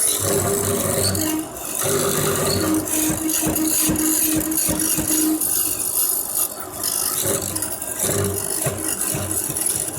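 Woodworking machinery running, with a hum that comes and goes and a rattling clatter of parts or wood being handled throughout.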